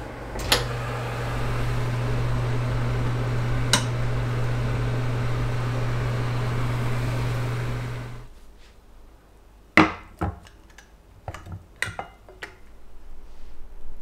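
A click as the LG oven's door is opened, then the oven's steady low electric hum with another click partway through. The hum cuts off about eight seconds in. Several sharp knocks follow, like a baking dish being set down on a wooden trivet.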